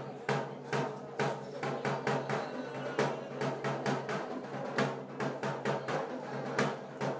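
Music with a drum beating a steady, regular rhythm of sharp strokes over sustained pitched tones.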